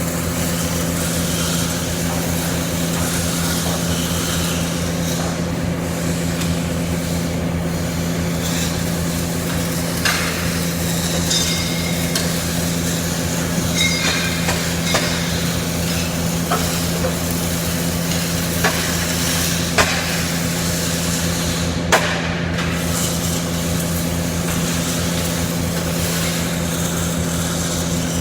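CO2-shielded wire (MIG) welding arc crackling steadily like frying, over a steady electrical hum, with a few sharper pops in the second half.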